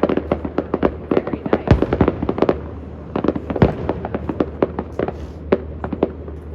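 Fireworks going off in quick, irregular succession: many sharp crackling pops, several a second, with two heavier bangs, one about a second and a half in and another about two seconds later.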